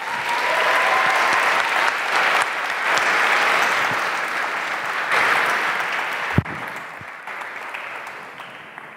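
Audience applauding, dying away over the last few seconds, with a single thump about six and a half seconds in.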